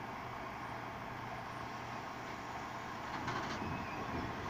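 R32 subway train standing in the station, its equipment giving a steady hum with a faint steady whine. About three seconds in the noise grows louder, with a few sharp clicks.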